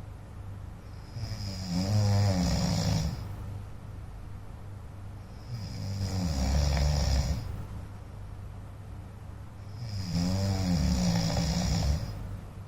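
A sleeping man snoring: three long snores about four seconds apart, each lasting about two seconds.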